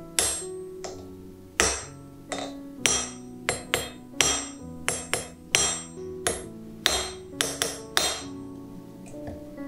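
A steel hammer striking a hand-held chisel set on a thin brass strip on an anvil, cutting through the metal. There are over a dozen sharp, ringing blows at an uneven pace, stopping shortly before the end, with background piano music underneath.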